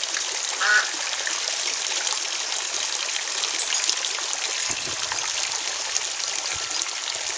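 Water trickling steadily into a backyard pond, with one short duck call about a second in.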